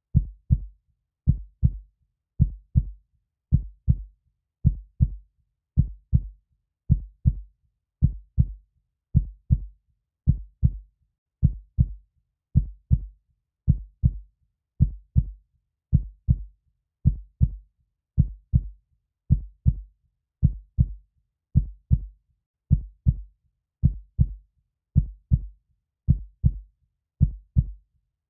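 Steady heartbeat: pairs of short low thuds (lub-dub) repeating evenly, a little faster than once a second.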